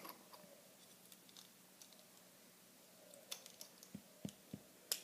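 Faint clicks of small plastic Lego pieces being handled and fitted, with a few soft low thumps and a sharper click near the end.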